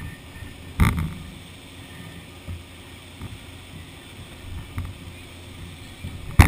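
Wind rumbling unevenly on the microphone of a kite-borne camera over a moving boat, with two sharp knocks, one about a second in and a louder one near the end.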